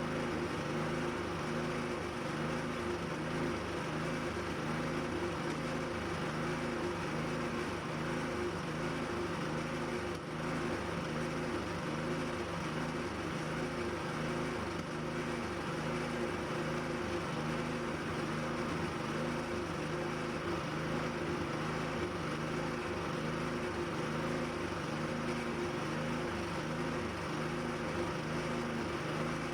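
A machine running steadily: an even hum with a throbbing low end that stays the same throughout.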